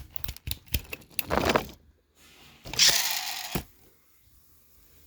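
Small clicks and handling noises from a Sprite soda, then a short, loud fizzing hiss about three seconds in.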